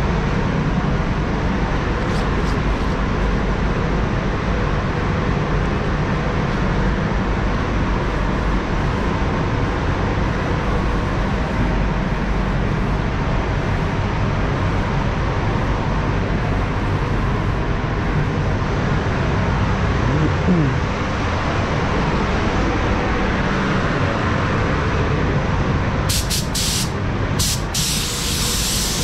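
Paint spray booth ventilation running as a loud, steady rush of air. Near the end come several short bursts of compressed-air hiss from an air gun while the base coat is being applied.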